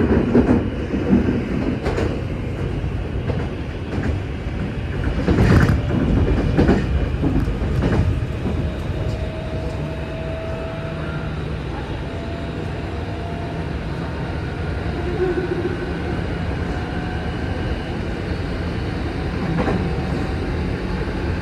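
Electric commuter train running, heard from inside the carriage: a steady rumble of wheels on rail, with several sharp clacks over rail joints in the first eight seconds, then smoother running with faint thin whining tones.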